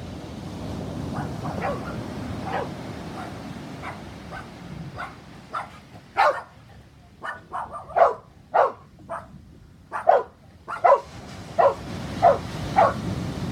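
A dog barking, a long string of short barks that start faint and grow loud and close together in the second half, over a low steady background rumble.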